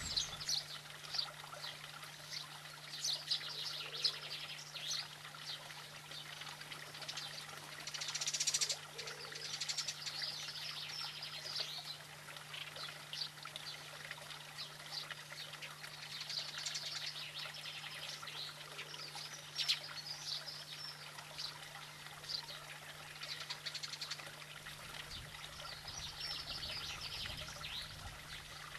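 Small songbirds chirping and singing: many short, high calls coming and going, with a steady low hum underneath.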